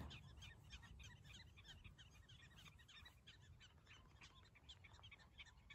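Faint chorus of black-tailed prairie dogs giving rapid, overlapping alarm chirps, several a second from many animals at once, warning of danger.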